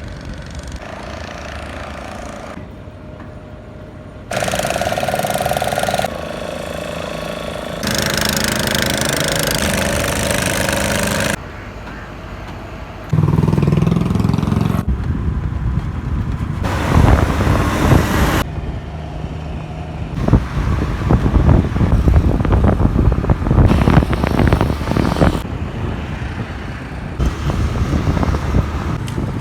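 Road traffic in a string of short clips joined with abrupt cuts: vehicles running past, with a rapid, irregular rattling in the later clips.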